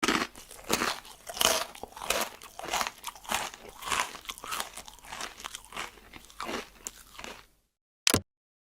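Irregular crunching, like chewing, a dense run of sharp bursts that cuts off abruptly, followed a moment later by one short, sharp burst near the end.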